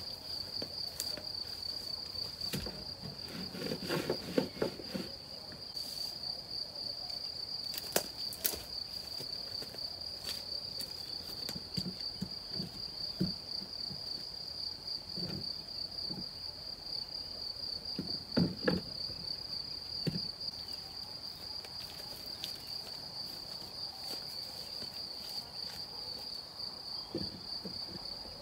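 A steady, high-pitched insect trill runs throughout. Over it come scattered knocks, thuds and shuffles, with the loudest clusters about 4, 8 and 18 seconds in, as a plastic bucket is set down and worked into place on the ground.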